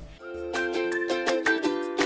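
Upbeat closing theme music with quick plucked-string notes, starting a moment after a brief pause.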